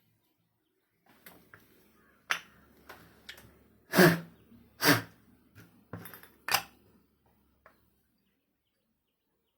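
A series of sharp clicks and knocks, about half a dozen, from small parts and tools being handled on a workbench. The loudest knocks come about four, five and six and a half seconds in.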